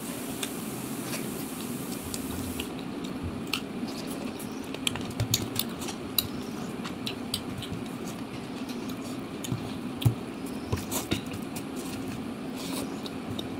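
Eating by hand from a ceramic plate: fingers scooping and mixing rice and chicken, giving scattered small clicks and squishes, with chewing between mouthfuls, over a steady low hum. A soft hiss runs through the first two or three seconds.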